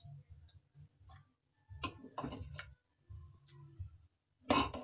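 Metal ladle knocking and scraping against an aluminium pressure cooker as curry is scooped out and poured into a ceramic bowl: a few irregular clinks and taps, the loudest near the end.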